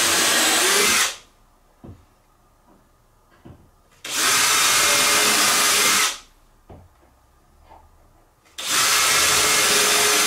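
Power drill boring pilot holes into the wooden drawer parts for screws: three steady runs of about two seconds each, the first ending about a second in and the last starting near the end, with small clicks in the pauses between.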